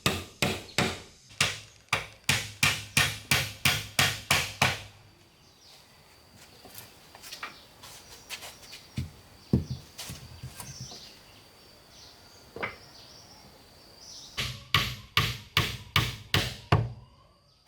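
Hammer blows on wood in a fast, even series, about three a second, stopping a little under five seconds in. After a lull with a few scattered knocks, a second short run of about seven blows comes near the end.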